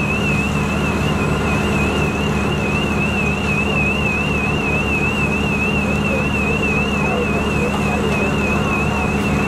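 A shrill electronic alarm warbling rapidly, about four times a second, without a break, over a large engine running steadily.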